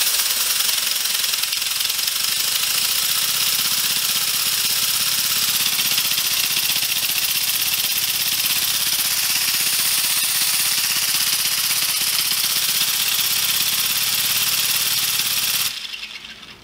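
3D-printed compressed-air piston engine running on 60 PSI air with its propeller spinning: a loud steady rush of exhausting air over a low hum. It dies away quickly near the end.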